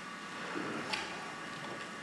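A single light click about a second in, with a few softer knocks, from props being handled in a small wooden box, over a steady faint hum.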